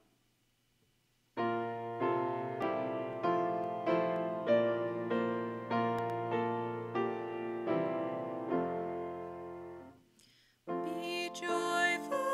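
Piano playing a slow hymn-like passage of chords, each struck and fading, starting about a second and a half in. The playing breaks off briefly near ten seconds and resumes with a new phrase.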